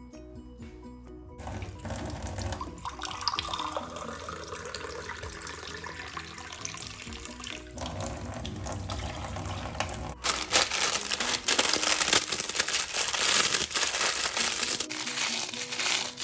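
Background music over water running from a kitchen tap at a steel sink, filling a mug; the rush of water grows louder about ten seconds in.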